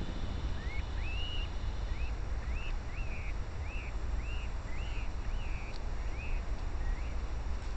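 A songbird calling: a steady series of short whistled notes, each sliding up and then levelling off, about one every half second, over a steady low rumble.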